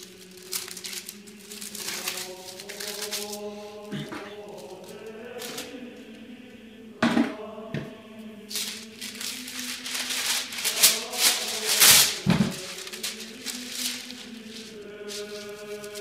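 Slow choral chant with long held notes, overlaid with loud rustling and crinkling of paper being handled, thickest in the middle of the stretch.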